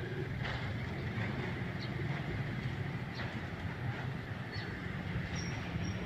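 A steady low background rumble, with a few faint, short, high chirps from a pet budgerigar in the second half.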